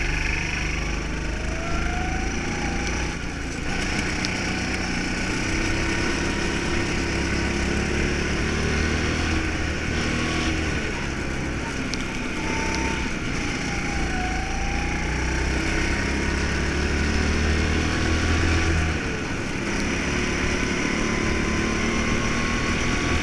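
Go-kart engine running at speed on a track, its pitch rising and falling as the kart accelerates and slows through the corners, with a steady rush of wind and road noise on the onboard microphone.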